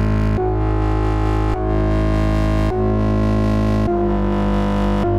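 Electronic synthesizer beat: sustained synth chords that change about every second over a steady deep bass.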